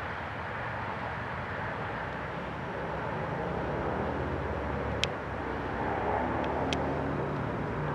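Steady outdoor background noise with a faint engine hum that swells in the second half, like a distant vehicle. Two sharp clicks about five and seven seconds in.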